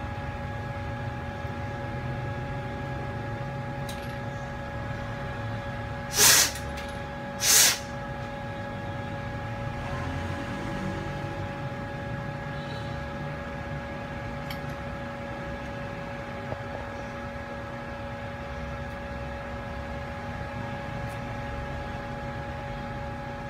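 A steady machine hum made of several held tones over a low rumble. About six seconds in it is broken by two short, loud hissing bursts a little over a second apart.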